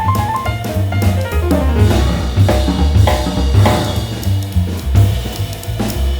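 Background music: a band with drum kit, bass and piano, with a steady beat of bass drum and snare hits.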